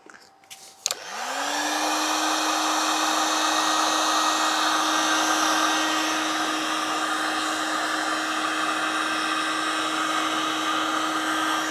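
Handheld heat gun switched on with a click about a second in. Its fan spins up to a steady whine under a loud rush of air, and it begins winding down near the end.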